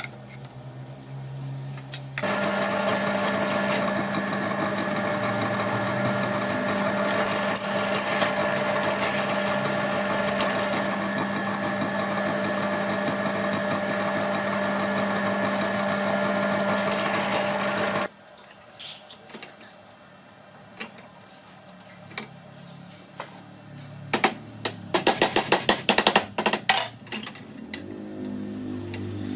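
A power tool's motor starts abruptly and runs steadily for about sixteen seconds, then cuts off. Quieter clicks and taps follow, with a quick run of rapid ticks near the end.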